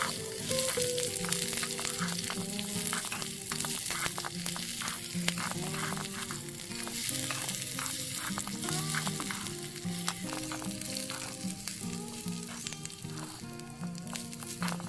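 Food sizzling in oil in a miniature pan, with a small spoon stirring and clicking against it, under background music with held notes.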